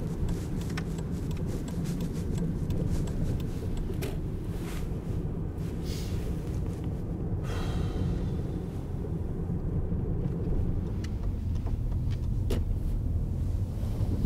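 Steady low rumble of a car's engine and tyres heard from inside the cabin while driving, with scattered light clicks.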